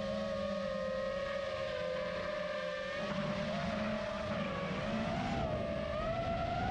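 FPV racing-style drone's electric motors and propellers whining in flight, a steady pitched hum whose pitch wavers about two thirds of the way through and settles a little higher near the end.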